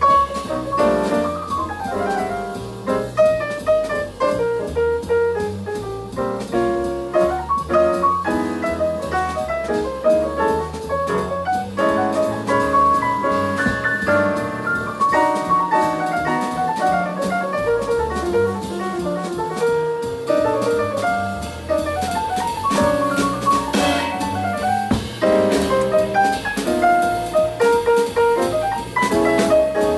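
Live jazz: a Baldwin grand piano playing runs of quick notes over upright double bass and drum kit.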